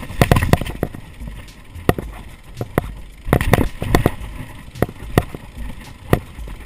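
Mountain bike rattling fast down a steep dirt-and-rock trail: sharp, irregular knocks and clatter as it hits bumps and roots, over a low rumble of the tyres on the ground.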